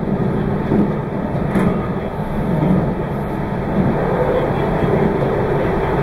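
Meitetsu 2200 series electric train running, heard from on board: a steady rumble of wheels and running gear.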